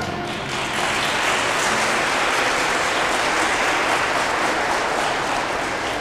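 Audience applauding at the end of a song, the clapping building up within the first second and easing off slightly near the end.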